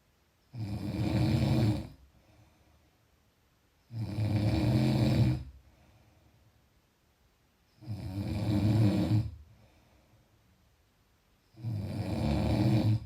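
A person snoring: four loud snores, one about every four seconds, each a low buzzing inhale lasting over a second, with quiet breathing between.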